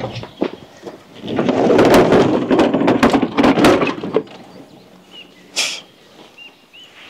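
Tent fabric rustling and crackling loudly for about three seconds as it is pulled and handled, followed by a single short knock.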